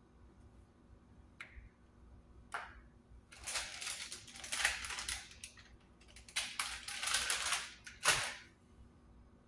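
A plastic zip-top bag crinkling as it is handled, in two stretches of about two seconds each, with a few sharp clicks and a knock near the end.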